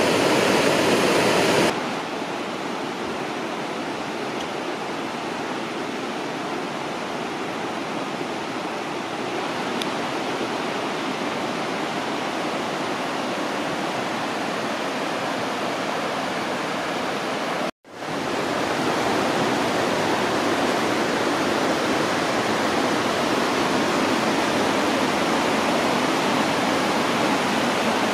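Creek water rushing over rapids, a steady, even rush. It turns quieter about two seconds in, drops out for an instant about 18 seconds in, then returns louder and close to the water.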